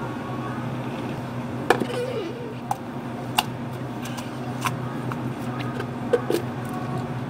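Steady low hum of cafe equipment, with about six short sharp clinks and taps from a blender jug and plastic cups as a thick green tea smoothie is poured.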